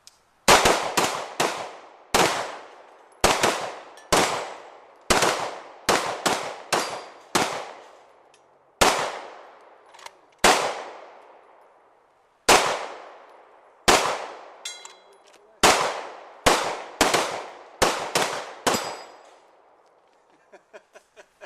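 Two handguns firing rapidly at once, about thirty shots in quick uneven runs that thin out after about nineteen seconds. Hits on steel plates ring faintly after a few of the shots.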